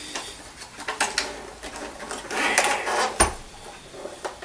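Handling noises from a 1967 Hoover Senior 652A upright vacuum cleaner being turned over and examined: several sharp clicks and knocks, with a brief scraping rustle about halfway through and the loudest knock a little after it.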